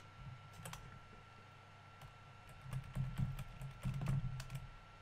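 Computer keyboard keys tapped in short scattered runs of clicks with soft thuds, most of them in the second half.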